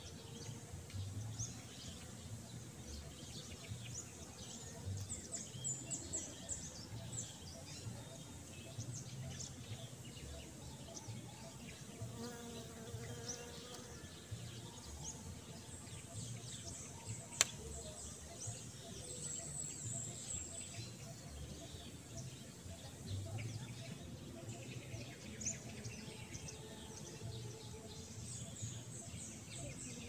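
Outdoor garden ambience: small birds chirping on and off in short high runs over a low, uneven rumble, with a single sharp click about seventeen seconds in.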